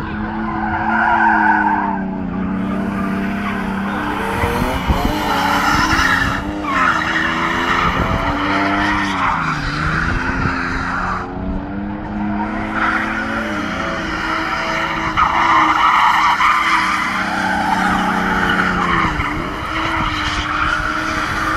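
Cars drifting in circles on concrete: engines revving hard, the pitch rising and dipping again and again, with tyres squealing and skidding.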